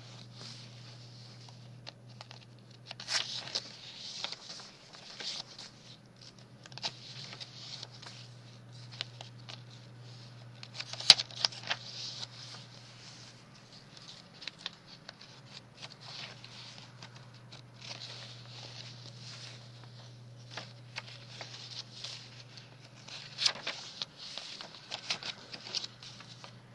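Paper rustling and crinkling as the pages and tucked-in papers of a handmade junk journal are handled and turned, with scattered light taps and one sharp click about eleven seconds in, over a steady low hum.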